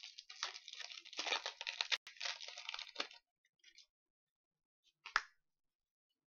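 Foil wrapper of a Pokémon XY booster pack crinkling and tearing as it is opened, for about three seconds, then one short rustle about five seconds in.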